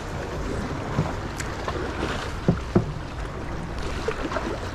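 Choppy sea water washing and splashing against the rocks of a breakwater, with wind on the microphone. Three brief sharp sounds stand out, about a second in and twice around two and a half seconds.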